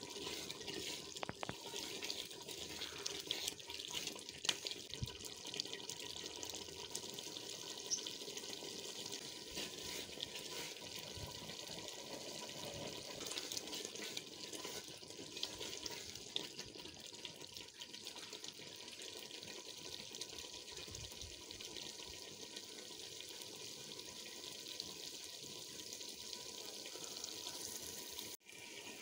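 Thick lobia daal simmering in oil in a large aluminium pot while a wooden spoon stirs it: a quiet, steady hiss with many small pops and ticks.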